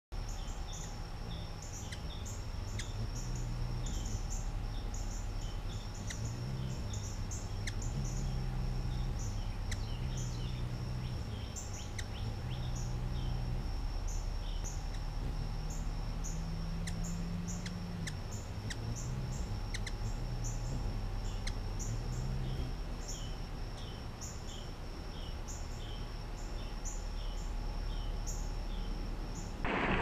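Ruby-throated hummingbird giving short, high chip notes, singly and in small runs, over a steady high whine and a low hum.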